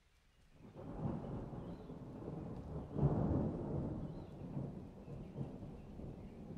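A deep rumbling noise that swells up about half a second in, is loudest about three seconds in, then slowly eases off.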